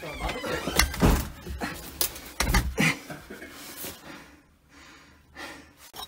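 A crowbar and hammer working a floor-bolted safe loose: a run of heavy metal knocks and clunks through the first three seconds, then quieter.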